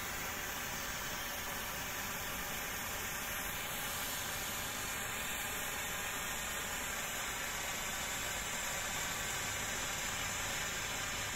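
Weco red Bengal hand flare burning with a steady hiss.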